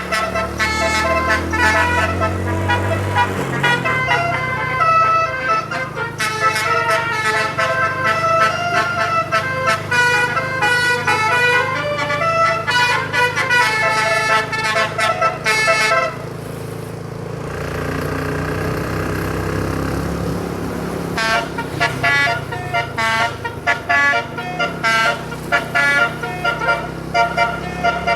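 Bus telolet horn: a multi-tone musical horn playing quick runs of changing notes over a steady low hum, with a break of about five seconds past the middle.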